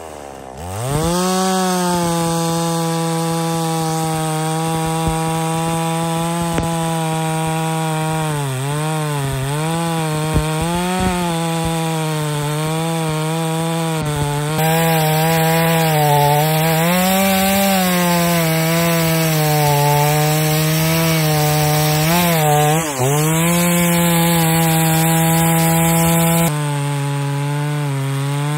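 Farmmac F380 two-stroke chainsaw, a copy of the Stihl MS380, revving up at the start and then cutting through a large log at full throttle. Its engine note dips and recovers again and again as the chain bites into the wood.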